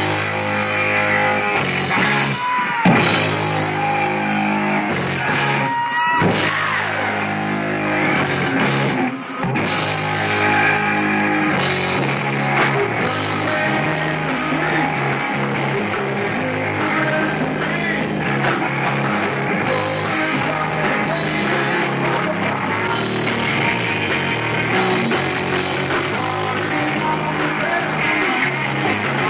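Live rock band playing loud: electric guitar, bass and drum kit with a man singing, heard through a phone's microphone. About three seconds in, a guitar note swoops steeply down in pitch.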